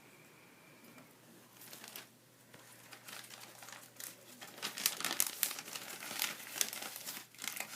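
Rapid, irregular crinkling and tearing of a thin crinkly material. It starts about a second and a half in and gets louder about halfway through.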